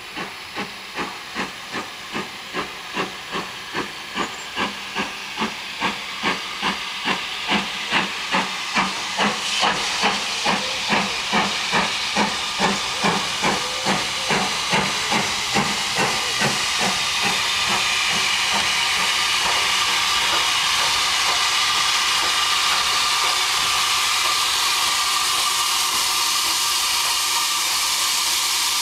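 Maunsell U class two-cylinder steam locomotive 31806 approaching. Its exhaust beats come about two a second and grow louder, then fade a little past halfway. A steady hiss of steam takes over and continues as the engine draws into the station.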